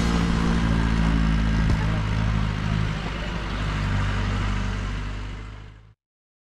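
A motor vehicle's engine running steadily, fading out near the end into dead silence.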